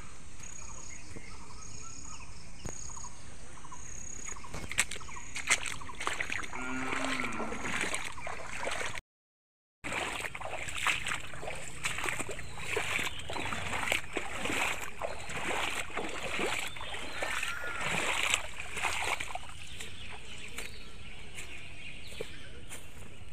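Footsteps sloshing and splashing through shallow floodwater on a footpath. The splashing is densest after a brief silent dropout about nine seconds in, and eases off near the end.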